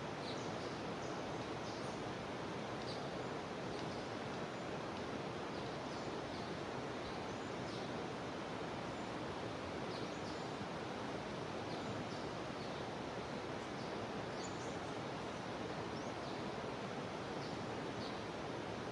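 Steady rush of a jungle river flowing, with short high chirping calls of wildlife scattered over it.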